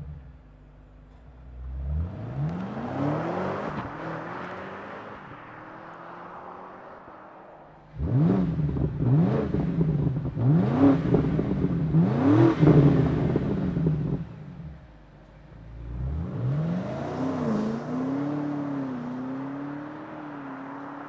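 BMW G90 M5's twin-turbo V8 through an Akrapovič titanium axle-back exhaust, flaring up and settling to idle, then blipped four times in quick succession, then flaring up again and settling to a slightly uneven idle.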